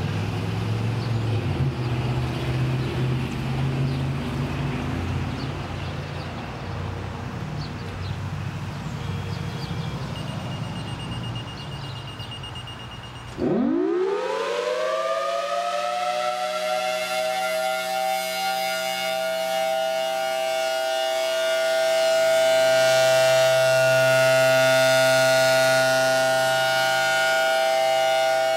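Federal Signal Thunderbolt 1003 outdoor warning siren sounding the steady one-minute alert signal in a test. After a low rumbling background, the siren winds up about halfway through in a steep rising glide and settles into a loud, steady dual-tone wail.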